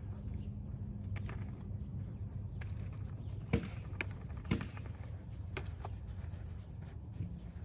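A few light clicks and taps scattered over a steady low rumble, with two sharper, louder clicks around the middle.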